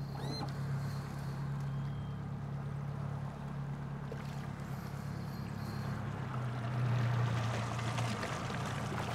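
Small Yamaha outboard motor running steadily at low speed, a low even hum that gets a little louder about two-thirds of the way through, with river water rushing past the boat.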